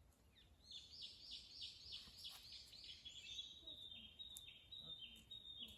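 A songbird singing: a quick run of about seven repeated high notes, then a series of shorter notes at a steadier pitch.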